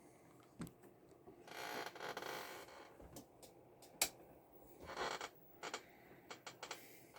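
Handling noise: two scraping rubs and a scatter of small clicks, with one sharp, loud click about four seconds in.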